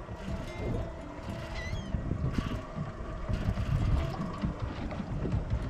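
Wind gusting on the microphone aboard a boat, an uneven low rumble with a faint steady hum underneath.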